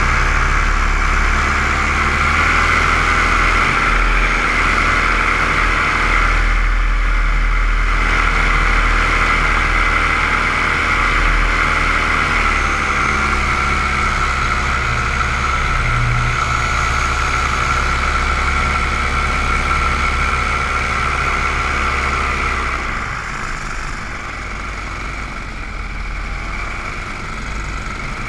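Motors and propellers of a small remote-controlled aircraft, heard from its onboard camera: a steady high-pitched buzzing whine. The pitch steps up about two seconds in, eases back down around twelve seconds, and the sound gets somewhat quieter near the end.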